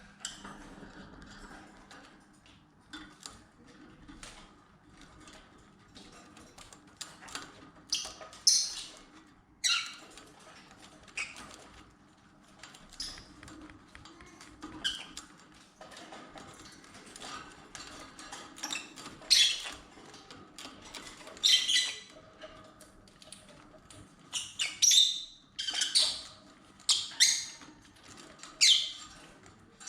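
Lovebirds giving short, sharp squawks and chirps, more often in the second half, over a continual light clicking and crunching of beaks chewing at a branch.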